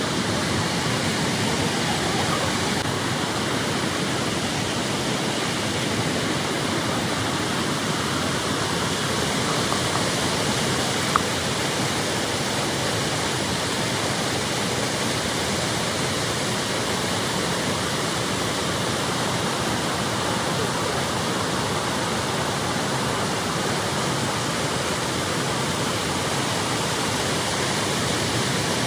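Waterfall: the steady rush of water falling and splashing, with one brief click about eleven seconds in.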